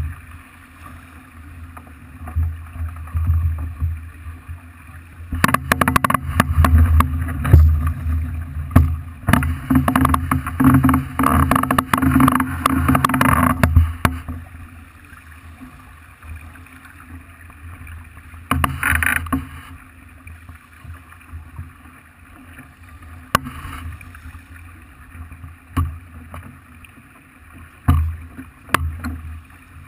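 Water rushing and splashing along the hull of a Farr 40 racing yacht under sail, with a low rumble and scattered knocks. It grows louder and rougher for several seconds in the first half, then eases back with a few brief surges.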